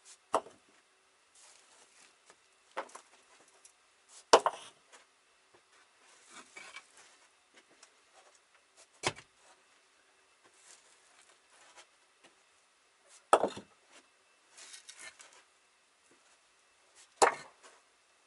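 Bricks being set into place in a brick-lined well pit: about six sharp knocks of brick on brick, the loudest about four seconds in, with soft scraping and shuffling between.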